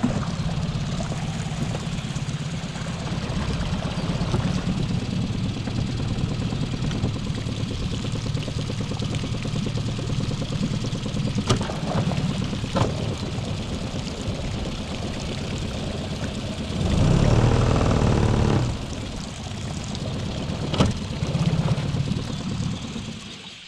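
Small tiller outboard motor running steadily as it pushes the boat along. It runs louder for about two seconds roughly two-thirds of the way through, then drops away near the end.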